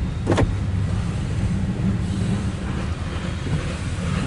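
Loaded coal train's hopper cars rolling past, a steady low rumble heard from inside a car, with one short sharp swish about a third of a second in.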